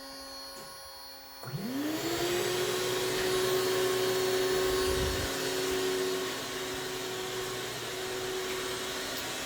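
A CNC router's vacuum hold-down motor is switched on about a second and a half in, spinning up with a quick rising whine and then running steadily and loud, over the lower hum of the already-running spindle.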